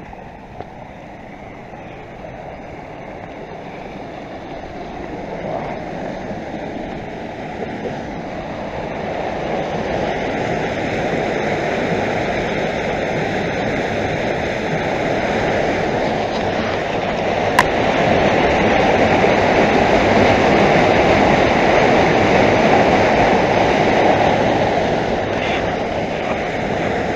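Water rushing through an old dam's concrete pipes. It grows steadily louder over the first two-thirds and eases slightly near the end.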